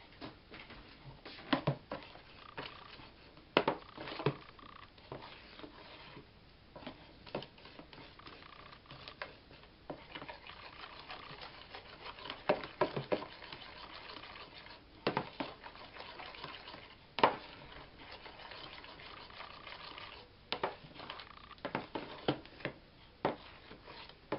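Spatula stirring a liquid batter of milk, sugar and vegetable oil in a plastic bowl, with irregular scrapes and sharp knocks against the bowl's sides.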